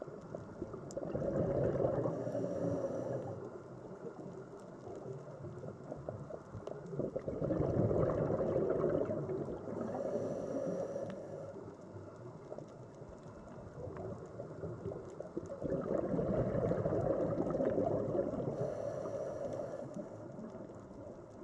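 Scuba diver's breathing heard underwater: exhaled bubbles from the regulator gurgling and rumbling in three long swells a few seconds each, one every six to eight seconds, with a faint higher hiss near each swell.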